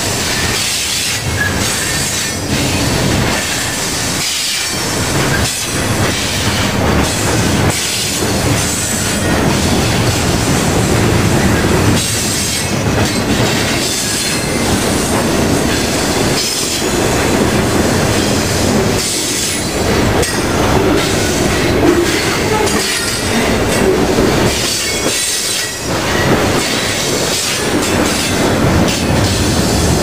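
Freight cars of a passing train rolling by close at hand: steel wheels rumble steadily on the rails, with repeated clacks as the wheels cross rail joints.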